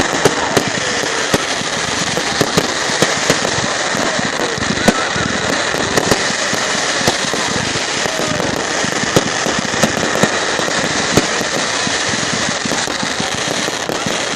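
Fireworks display: a dense, continuous crackle with sharp bangs going off every second or so.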